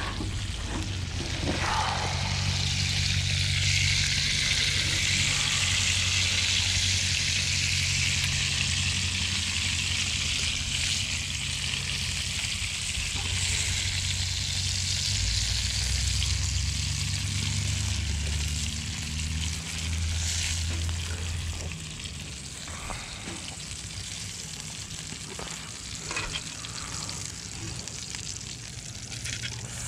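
Red rock cod pieces frying in hot oil in a pan over a wood fire, a dense steady sizzle. It swells about two seconds in and dies down after about twenty seconds, over a low steady rumble.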